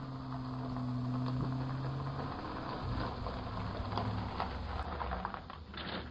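UPS delivery truck driving up a gravel driveway and pulling to a stop: a steady engine hum that drops lower about two seconds in as it slows, tyres crunching on gravel, and a short hiss just before the end as it halts.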